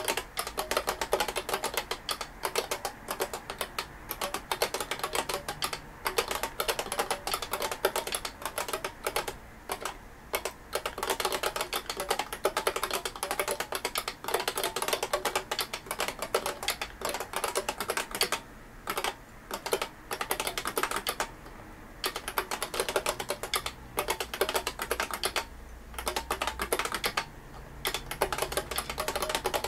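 IBM Beamspring keyboard from a 5251 terminal being typed on fast and continuously: a dense stream of sharp key clicks, with a few short pauses in the second half.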